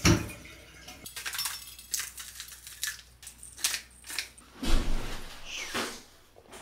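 Seasoning being shaken over a plate of chicken from a spice shaker: a run of small clicks and rattles, then one louder knock near the end.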